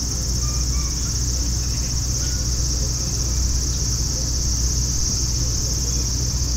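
Cicadas singing in a steady, unbroken high drone, over a steady low rumble.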